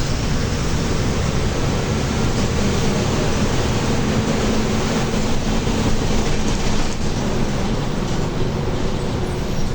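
Mercedes-Benz OF-1724L city bus's front-mounted diesel engine running hard under way, with a dense low rumble and road noise; the engine note rises a little over the first several seconds and eases off near the end.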